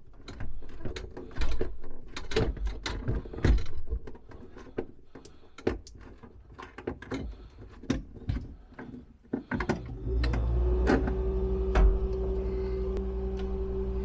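Irregular clicks and knocks of hand work with a quarter-inch nut driver on the ice maker's bottom mounting screw, inside a freezer compartment. A steady hum sets in about ten seconds in.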